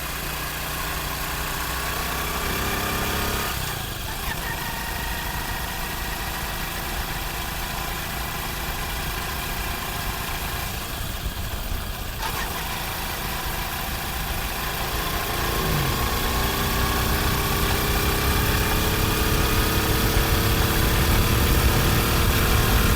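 Honda CD70's small single-cylinder four-stroke engine on a test ride after a gearbox repair. The engine note climbs, then drops as gears are changed about 4 and 12 seconds in, then rises steadily and grows louder toward the end. It runs with the former gear noise and shifting fault cleared.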